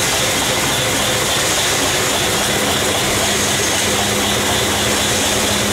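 Double-cylinder V-type 20 HP steam engine driving its alternator, running steadily under test: a continuous machine hum with a broad hiss.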